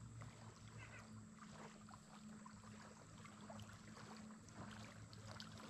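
Near silence: a faint steady low hum and hiss of background noise, with a few faint ticks.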